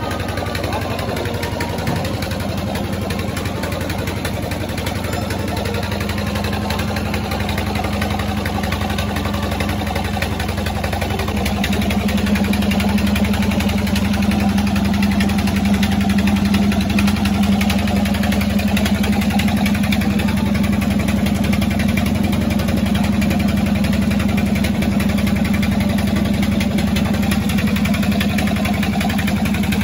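Small mustard-oil expeller running steadily while it presses mustard seed, a continuous mechanical hum that gets louder about twelve seconds in.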